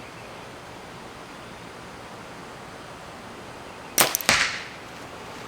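A compound bow shot fired with a hinge release: a sharp snap of the string and limbs about four seconds in, followed about a third of a second later by a second sharp hit, the arrow striking the target.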